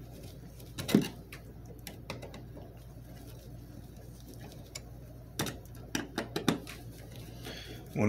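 Screwdriver clicking and scraping against the metal screws of a duplex wall receptacle as it is unscrewed. There is a sharp click about a second in and a cluster of clicks a little past halfway, over a faint low hum.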